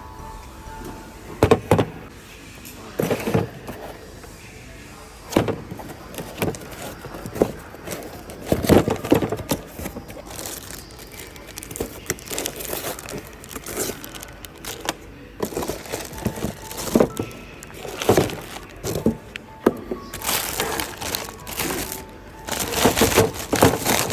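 Irregular clinks and knocks of hand tools against metal engine parts during water pump replacement work, over background music.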